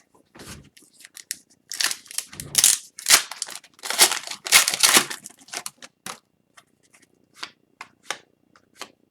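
Foil wrapper of an Upper Deck hockey card pack being torn and crinkled open, loudest for a few seconds. Then the cards are handled, with a string of short, light clicks.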